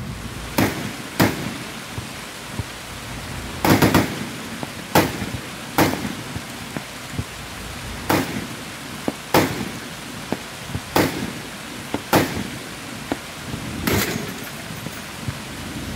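Heavy machine gun, a Browning M2 .50 calibre, firing single rounds and short bursts about every one to two seconds, each report trailing off in a short echo. Steady rain hiss runs underneath.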